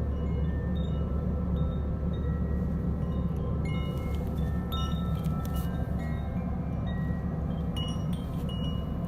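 A gong ringing in a sustained, steady low drone, with short high bell-like tones at shifting pitches coming and going above it.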